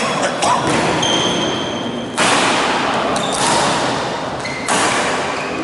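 Badminton rackets striking a shuttlecock in a doubles rally: several sharp hits, a second or more apart, each ringing on in the large, echoing hall.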